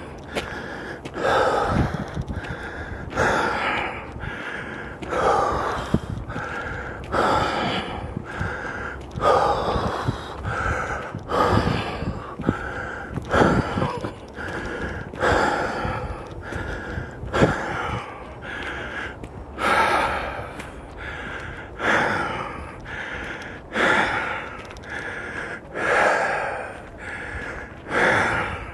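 Heavy breathing of a person walking a trail, close to the microphone, a loud breath about every two seconds.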